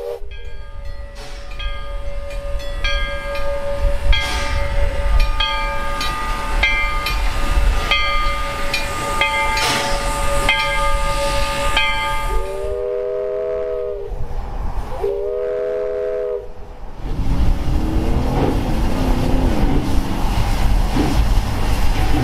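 A bell ringing in an even rhythm, nearly two strikes a second, over the low running noise of the steam locomotive V&T No. 25. Then two long blasts of the locomotive's steam whistle, a three-note chord, followed by its noisy rumbling running sound with faint squeals as it rolls.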